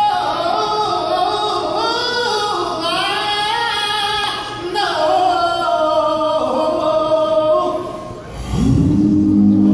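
Male a cappella vocal group singing in close harmony, the voices moving together from chord to chord. A low bass part comes in near the end, under the upper voices.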